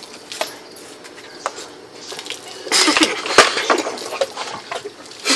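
A beer can being shotgunned: light clicks and clinks of the aluminium can, then about three seconds in a louder rush of fizzing, splashing beer and gulping that lasts about a second.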